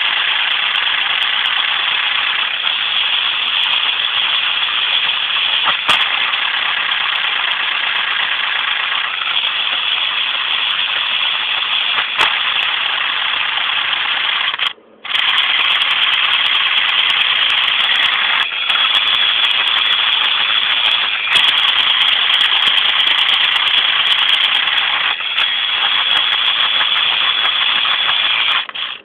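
Motor-driven Lego Technic orbital gearbox running, its plastic gears and axles meshing in a loud, steady rattle. About halfway through it stops for half a second, then starts again at the same pace.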